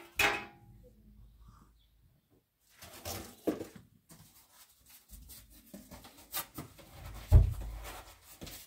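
A few separate knocks and rustles of household objects being handled, with quiet between them; the loudest is a deep thump near the end.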